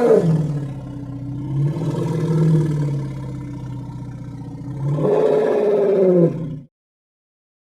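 Stock creature roar sound effects voicing a triceratops: a long, lower roar runs on for about five seconds, then a second, louder roar cuts off suddenly.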